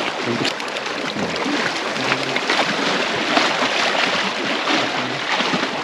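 Small lake waves lapping and splashing against shoreline rocks: a steady wash of water.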